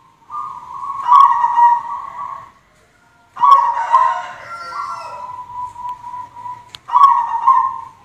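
White zebra dove (perkutut) cooing: three trilling, whistle-like phrases in a row, the first two separated by a short pause and the third following almost at once.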